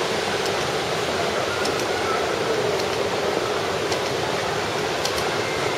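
Steady rushing background noise of a large airport lounge, with a few faint light ticks.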